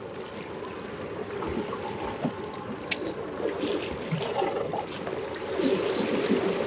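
Water sloshing against a small boat's hull, with a hooked striped bass splashing and thrashing at the surface close to the stern, loudest near the end.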